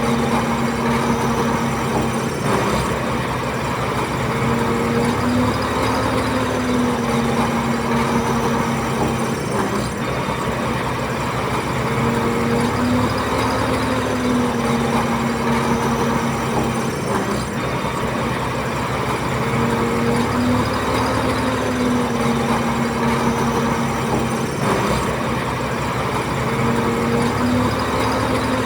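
Bulldozer's diesel engine running steadily under work, its pitch sagging and recovering in a slow, repeating pattern.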